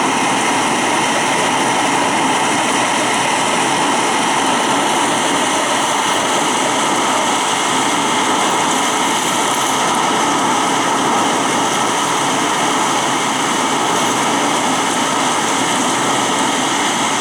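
Heavy wind-driven rain pouring down: a steady, loud rushing hiss that does not let up.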